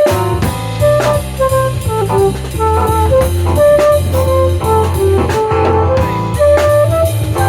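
Instrumental jazz-style music: a melody of held notes over a steady bass line and a drum kit.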